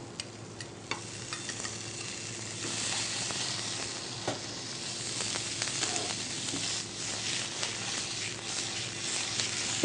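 Fish pieces sautéing in hot coconut oil with shallots, sizzling while a spoon stirs and clicks against the pan. The sizzle gets louder about three seconds in.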